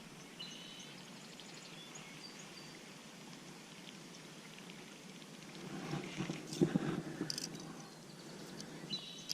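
Steady riverside ambience with small birds chirping now and then; about six seconds in, a short louder spell of knocks and rustling for a second or so.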